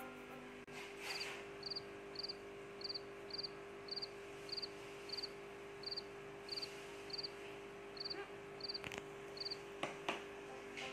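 A cricket chirping: short pulsed chirps repeating a little under twice a second, about fourteen in all, over a steady low hum.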